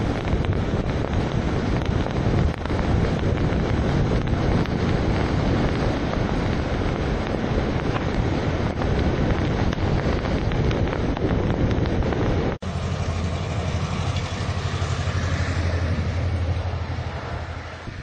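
Wind noise buffeting the microphone over a vehicle's running and road noise, driving through heavy snowfall. About twelve and a half seconds in the sound cuts abruptly to a steadier, lower rumble.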